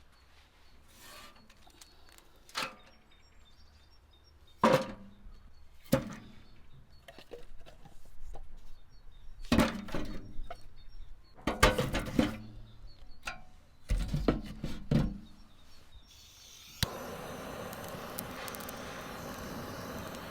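Irregular knocks and clatters of hands-on cooking work. Near the end a steady hiss starts abruptly and keeps going.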